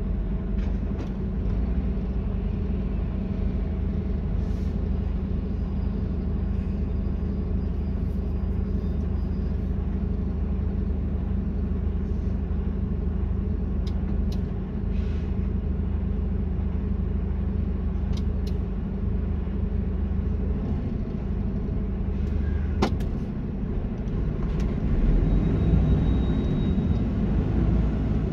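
Truck engine running with a steady low rumble and a few brief clicks. It grows louder about three seconds before the end.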